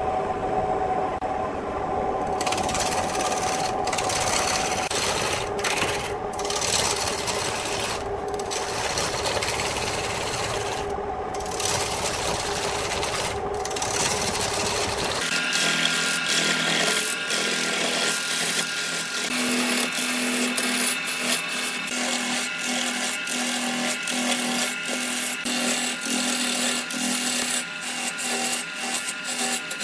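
A wood lathe running while a gouge cuts into a spinning bark-covered log blank: a steady motor hum under continuous scraping, with many sharp ticks in the second half. The low hum drops away about halfway through.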